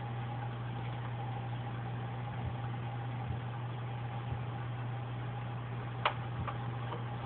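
A steady machine hum with a faint high tone held over it, and one sharp click about six seconds in.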